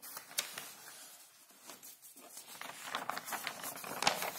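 Paper pages of handwritten notes being turned and handled: a faint rustle with scattered small clicks and crinkles, sparse at first and busier in the second half.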